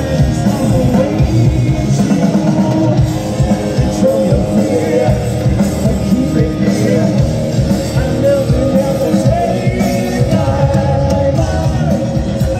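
Hard rock band playing live: distorted electric guitars, bass and drums with a singer, heard loud and full from the crowd.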